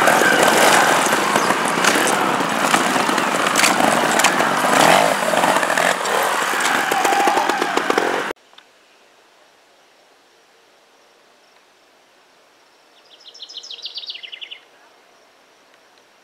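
Two-stroke trials motorcycle engine running and revving as the bike climbs over logs; it cuts off suddenly about eight seconds in. Then quiet outdoor background with a songbird giving one short trill of rapid notes that falls in pitch.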